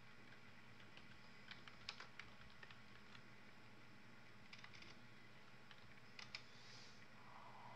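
A few short runs of faint clicks from typing on a computer keyboard, over near-silent room tone.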